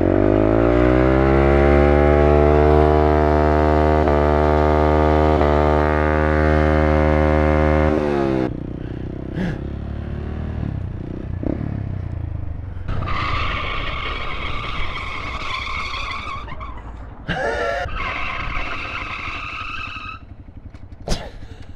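Honda Grom's small single-cylinder engine revving up over about two seconds and held at high revs, then shutting off abruptly about eight seconds in. After that there is quieter road and wind noise, with a steady high-pitched tone in the second half.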